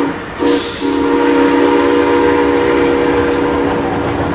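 Steam locomotive whistle blowing a steady chord of several tones over the running noise of the train. The whistle breaks off twice, briefly, just after the start.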